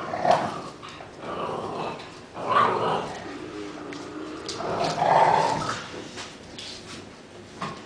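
An American bulldog puppy and an adult American Staffordshire terrier growling in rough play, in about four bursts.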